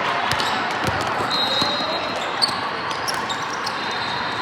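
Basketball game in a gym: a ball bouncing on the hardwood a few times in the first second, and sneakers squeaking on the floor, over the steady murmur of the hall.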